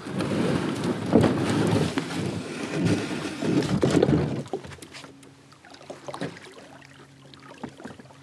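Plastic kayak hull scraping over gravel and dry grass as it is slid down the bank into the river, a rough scraping that stops about four and a half seconds in; then only light scattered knocks and ticks as it floats.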